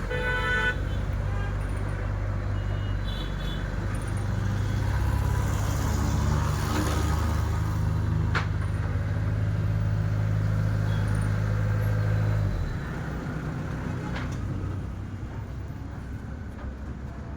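A heavy engine running steadily, then dropping to a quieter, lower run about twelve and a half seconds in. A short horn toot sounds at the start.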